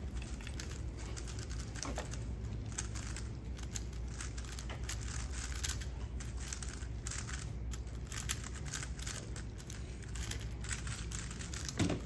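3x3 speedcubes being turned at speed during a solve: a rapid, uneven patter of small plastic clicks and clacks over a low steady room hum.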